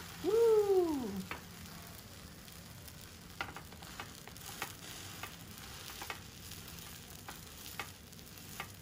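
Sourdough scallion pancake sizzling in a frying pan just after being flipped, with scattered light clicks of a spatula pressing and moving it. Near the start, a brief voice sound rising then falling in pitch is the loudest thing.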